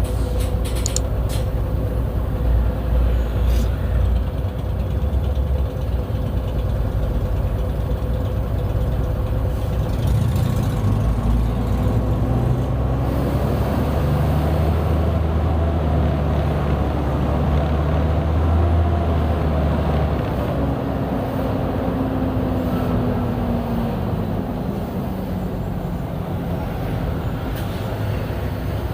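Mercedes-Benz O-500U city bus diesel engine with Voith automatic transmission running under way; about a third of the way in the engine note climbs and grows louder as the bus gathers speed, then glides down again near two-thirds of the way through.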